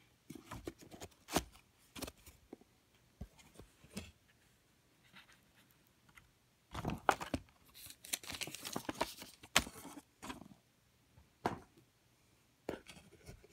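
Hands handling cigars and a cigar box. Scattered light taps and clicks come first as a cigar is laid back among the others, then about three seconds of rustling and scraping with a few sharp knocks as the box is moved.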